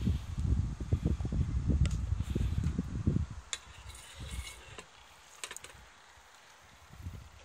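Rustling and low bumping of a canvas tote bag holding a fuel can being handled, dense for about three seconds, then a few light clicks.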